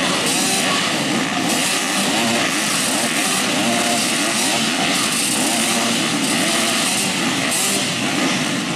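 A field of motocross dirt bikes at the start line, many engines running together and being revved, their pitches rising and falling over one another as the riders wait for the start.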